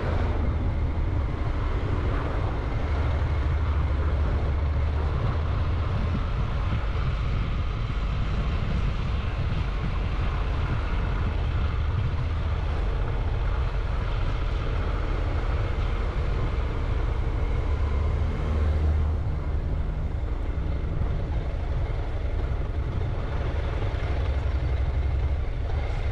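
Motorcycle running on the move, its engine mixed with road and wind noise in a steady low rumble that eases slightly about two-thirds of the way through.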